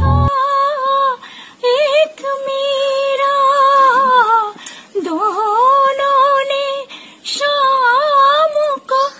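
A woman singing unaccompanied, holding long high notes with a wavering vibrato in several phrases broken by short pauses for breath. A backing music track cuts off just as the singing begins.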